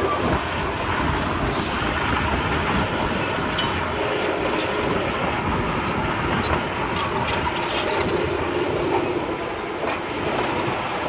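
Komatsu D31P crawler bulldozer at work, its diesel engine running steadily under a dense mechanical clatter, with faint sharp clicks scattered throughout.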